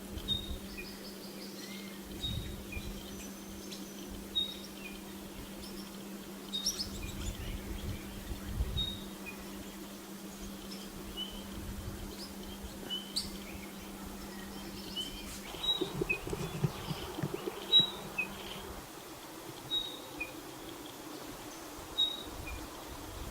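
Spotted pardalote calling: short, high whistled notes repeated every second or two, with other brief chirps among them.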